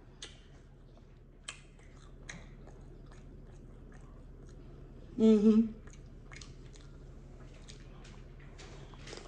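Close-miked mouth sounds of someone eating cauliflower-crust pizza and chicken wings: chewing and biting, with scattered sharp wet clicks. About five seconds in comes a brief, loud voiced hum.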